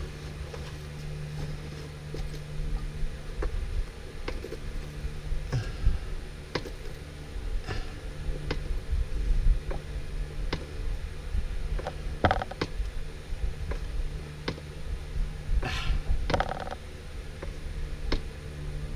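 Hand fluid pump being stroked to push gear oil into a manual transmission, with irregular creaks and clicks from the pump, over a steady low hum.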